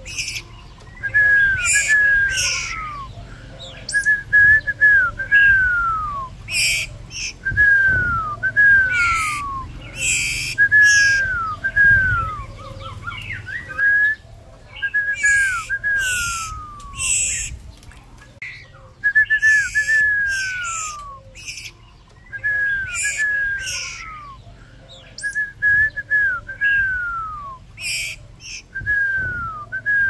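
Hand-fed fledgling songbirds begging with harsh, high chirps. Clear whistles that slide down in pitch come in groups of two or three and repeat every few seconds.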